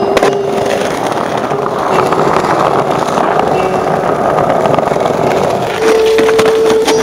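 Skateboard wheels rolling over brick paving, a steady rough rolling noise.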